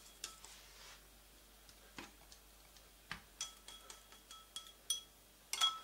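Scattered light clicks and clinks of kitchenware being handled, several leaving a brief ringing tone, with the loudest cluster near the end.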